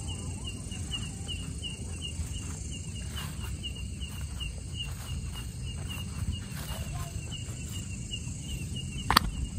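Cricket chirping steadily, a high chirp repeated about four to five times a second, with footsteps on a dirt path and a low rumble under it. One sharp click sounds near the end.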